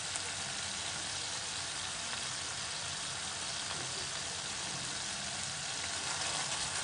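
Garlic and Schezwan sauce sizzling steadily in a kadhai over a gas flame, a little louder near the end.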